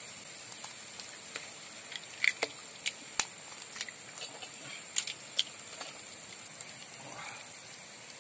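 Hot oil in a wok crackling, with scattered sharp pops over a steady hiss, as raw eggs go in on top of fried greens.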